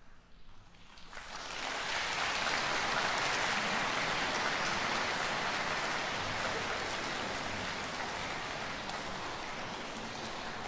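Audience applauding in a concert hall: a dense, steady clapping that swells in about a second in after a quiet pause, then holds and eases off slightly near the end.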